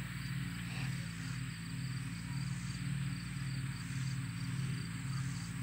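Steady low mechanical hum over faint outdoor background noise, with no distinct animal calls.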